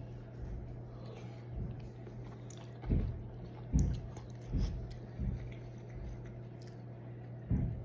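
Close-up chewing of a boiled egg and cheesy tteokbokki, with several soft low thumps from the chewing and bites, over a steady low hum.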